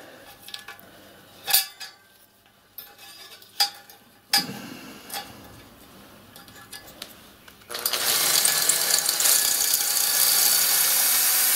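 A few sharp clicks and knocks, then about four seconds in the second half of a cordless drill running steadily as it bores a clearance hole through a flat mild steel band. The drilling cuts off suddenly.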